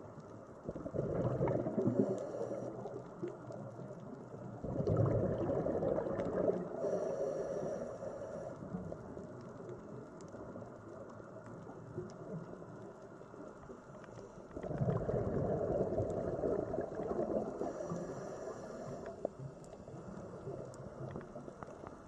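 Scuba diver breathing through a regulator underwater: three bubbly rushes of exhaled air, each a few seconds long, about a second in, about five seconds in and about fifteen seconds in, with quieter underwater background between them.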